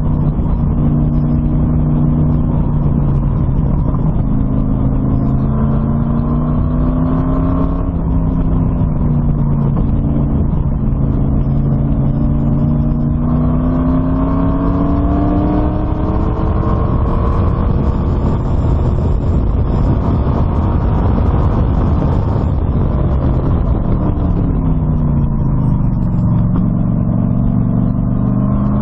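LS1 V8 in an Exocet kit car running hard on track, its pitch climbing for several seconds under acceleration and dropping back at each shift. Near the end it falls away as the car slows, then climbs again.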